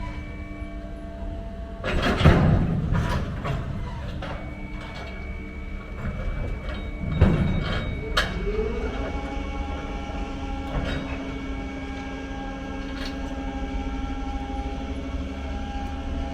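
Heavy truck engine running with a steady rumble, with loud clanks about two and seven seconds in; about eight seconds in the engine note rises and then holds steady at the higher speed.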